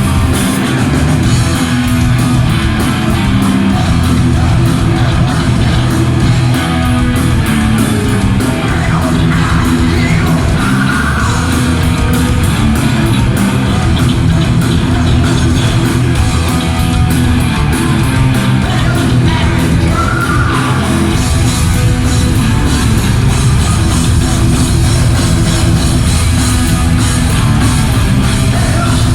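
Heavy metal band playing live in a concert hall: distorted electric guitars, bass and drums, loud and continuous, with a singer's voice coming through at moments.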